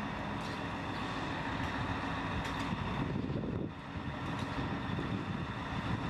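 Diesel engine of a lattice-boom crawler crane running steadily while it swings a suspended load, with a few faint ticks over the low rumble.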